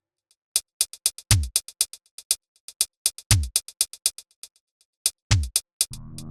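Electronic drum pattern played by Strudel: a kick drum that drops in pitch, once every two seconds, under fast hi-hat ticks. Near the end a sustained synthesizer drone chord comes in, held by long note overlaps (legato).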